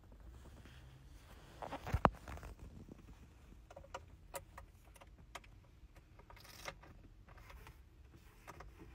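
Car keys jangling and clicking at the ignition: a series of small clicks and rustles, with one louder knock about two seconds in.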